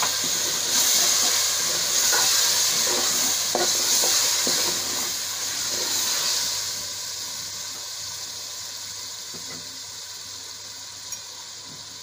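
Tomato-and-spice masala sizzling hard in hot oil in a metal pot just after a little water has been poured in, with a spoon stirring and knocking against the pot. The sizzle dies down after about six or seven seconds to a quieter, steady frying hiss.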